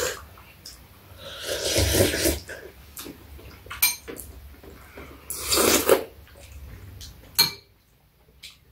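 Eating sounds at a meal of seaweed soup: metal spoons and chopsticks clicking against ceramic bowls, with two noisy slurps of about a second each from spoonfuls of soup.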